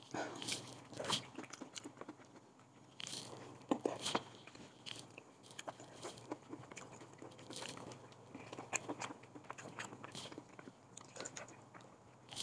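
A person eating chicken hot pot with chopsticks: chewing and crunching mouthfuls, with irregular small clicks throughout.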